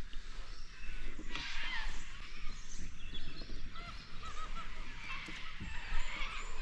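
Several birds calling and chattering at once, in many short, rising-and-falling notes, over a low rumble.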